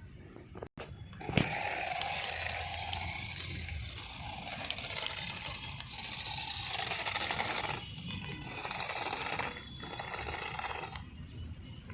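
Battery-powered toy RC car's small electric motor and gearbox whirring as it drives, starting and stopping several times, with a sharp click about a second in.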